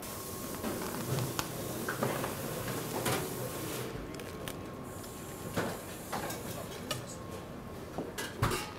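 A plastic vacuum-pack bag being slit open with a knife and handled on a cutting board, crinkling, with a few sharp knocks and a high hiss that fades about four seconds in.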